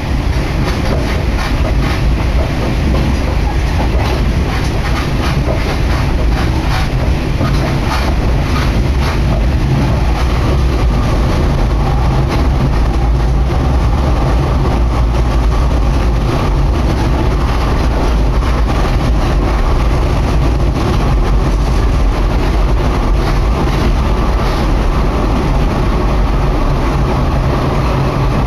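Kashima Rinkai Railway diesel railcar under way, heard from inside: a steady, loud rumble of the engine and the wheels on the rails, with sharp clacks over rail joints now and then, most often in the first ten seconds or so.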